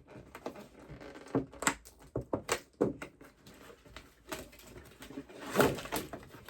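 Toy packaging being pulled apart by hand: scattered clicks and crackles of plastic and cardboard, with a louder rustling burst about five and a half seconds in.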